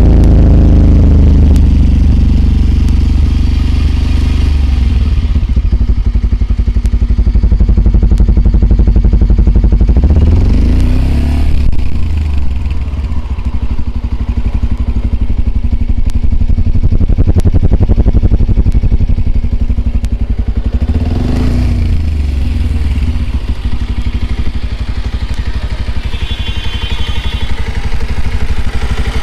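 Bajaj Pulsar 125 BS6 single-cylinder engine idling on its stand, the exhaust heard close up. The throttle is blipped briefly three times: at the start, about ten seconds in and again about twenty-one seconds in, the revs rising and dropping back to a steady idle each time.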